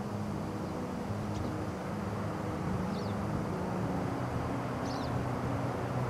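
Steady low outdoor background rumble with a hum, and three faint, short high chirps about every one and a half to two seconds.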